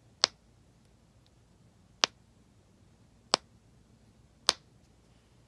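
Silicone snapper fidget toy popping four times: sharp single snaps about one to two seconds apart.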